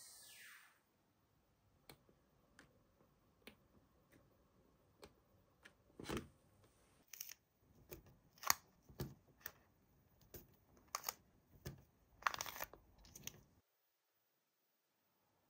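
Stickers being peeled from their backing sheet and pressed onto a paper colouring page with a fingertip: scattered faint clicks and taps, then a run of louder short crackly peels and rubs. The sound cuts off about two seconds before the end.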